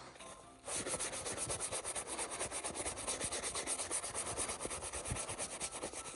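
Hog-bristle brush scrubbed briskly back and forth over the leather of a first baseman's mitt. The scratchy strokes start about a second in and run fast and even, about seven a second.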